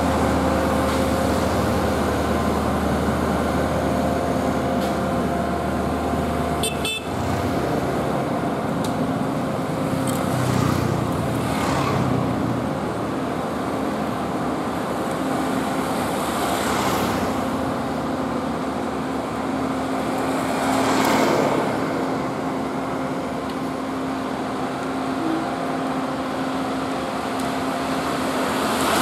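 Diesel engines of road-paving machines, a tandem asphalt roller and an asphalt paver, running with a steady drone. Motorbikes pass by now and then. The drone changes abruptly about seven seconds in.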